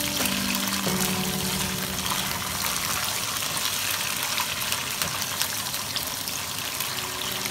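Chili broad bean paste and minced aromatics sizzling and crackling in hot oil in a nonstick wok as a spatula stirs them: a steady hiss with many small pops. Soft background music plays over the first few seconds.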